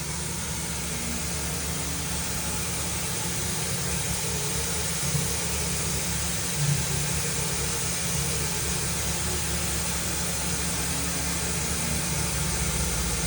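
Mazak VCN 510C-HS CNC vertical machining center traversing along its X axis: a steady mechanical hum and hiss of the running machine, with brief louder moments about five and seven seconds in.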